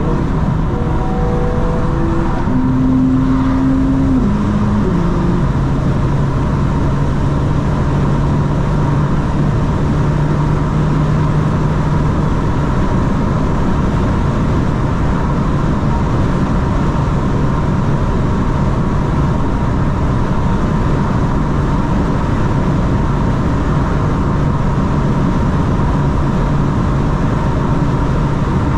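BMW M4 Competition xDrive's twin-turbo inline-six driving on the road under steady tyre and wind noise. Over the first five seconds its engine note drops in pitch in several steps, then holds a steady low drone.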